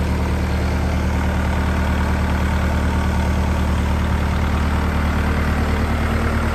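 Kubota L5018 tractor's diesel engine idling steadily.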